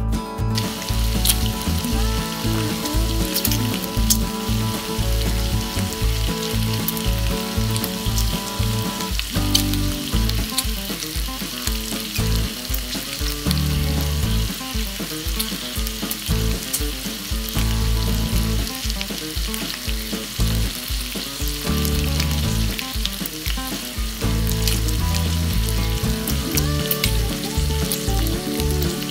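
Oil sizzling and crackling in a nonstick pan, first under a frying egg, then under a chive pancake batter (buchujeon) laid over it, with scattered pops of spitting oil. A spatula stirs and spreads the batter.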